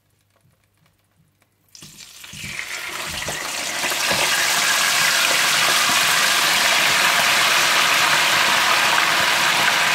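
Whole marinated chicken deep-frying in hot oil. After a near-silent start, the sizzling comes in suddenly about two seconds in, swells over the next two seconds and then holds as a loud, steady sizzle.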